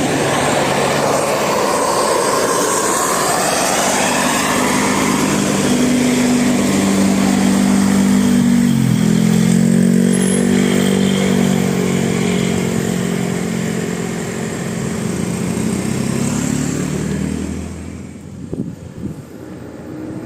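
Bus driving past with its engine running, a steady low hum over road noise; the sound drops away about eighteen seconds in.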